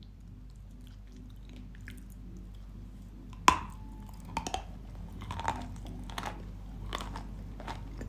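A piece of dry Yampol clay is bitten off with one sharp, loud snap about three and a half seconds in. It is then chewed close to the microphone in a series of separate dry crunches, roughly one every half second to second.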